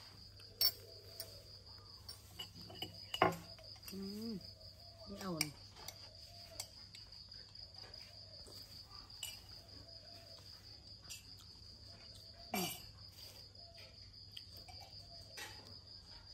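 Steady chirring of crickets, with a few sharp knocks and clinks on the tiled tabletop where the monkey handles its bread and a metal spoon. The loudest knock comes about three seconds in. A brief low voice is heard around four to five seconds in.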